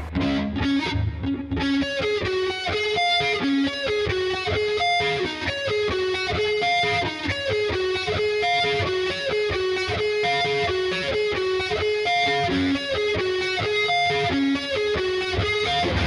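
Gibson Les Paul Tribute '70s electric guitar on its neck pickup with a distorted tone, playing a fast picked riff of single notes that repeats a short phrase about every two seconds.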